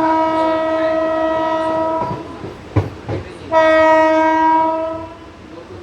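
Train horn sounding two long blasts: the first stops about two seconds in, and the second starts about a second and a half later and fades away near the five-second mark. Two sharp knocks sound in the gap between the blasts.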